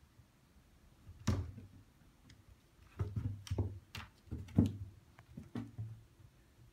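A kitten's paws thumping and tapping on bare wooden floorboards as it chases and bats a small ball. One knock comes about a second in, then a quick run of thumps and taps, the loudest near the middle.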